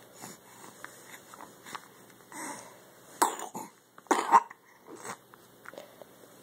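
Baby hiccuping: short, sharp hiccups, the two loudest about three seconds in and a second later, with fainter breathy catches around them.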